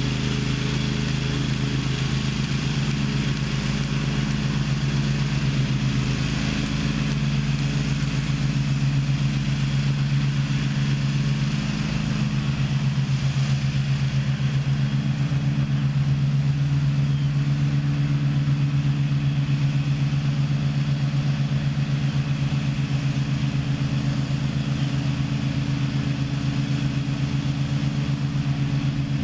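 Gravely ZTX 42 zero-turn riding mower's engine running steadily under mowing load, its pitch holding level throughout.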